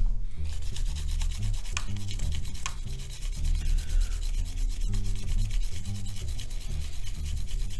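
Rapid, continuous scrubbing of the grimy body of a Nikon EM film camera as it is cleaned by hand, over background music with a low bass line.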